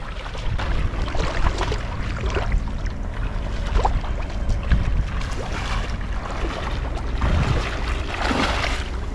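Legs wading and splashing through shallow muddy pond water in irregular sloshes, with wind rumbling on the microphone.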